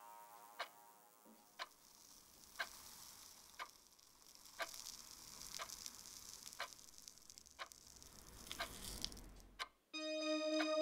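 Sharp, steady ticks about once a second, like a clock, over a faint airy hiss. Near the end a low rumble builds under it. The whole bed cuts off suddenly and a sustained electronic tone begins.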